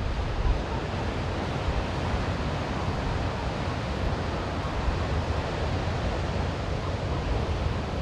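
Giant ocean waves breaking, a steady noise of heavy surf and wind.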